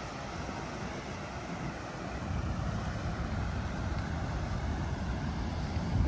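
Wind buffeting the phone's microphone as a low, uneven rumble over a steady outdoor rush, growing stronger about two seconds in.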